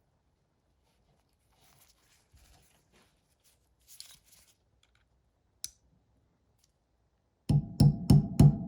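A few faint, brief scraping sounds and one sharp click from small metal handling, then a loud percussive music track with a steady beat starts near the end.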